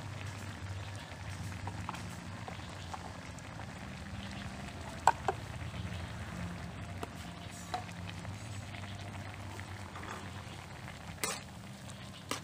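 Cucuzza squash, pork and egg simmering and bubbling in a steel wok, a steady frying-and-boiling noise. A few sharp clicks cut through, the loudest about five seconds in, and near the end a metal spatula starts stirring against the wok.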